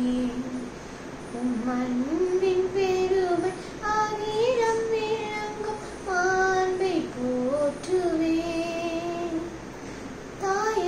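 A young girl singing a Tamil Christian hymn to Mother Mary, unaccompanied, in phrases of long held notes that step up and down in pitch, with short pauses between phrases.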